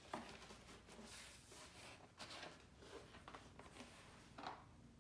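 Faint rustling and rubbing from a board of wet watercolor paper being tilted and shifted on a towel and wiped with a cloth, with a soft knock just after the start and another near the end.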